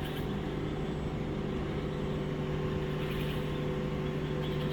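A steady low droning hum made of a few held tones, with a faint hiss above it. It is the unidentified strange sound that the listeners take for a pest animal that eats coconut palms.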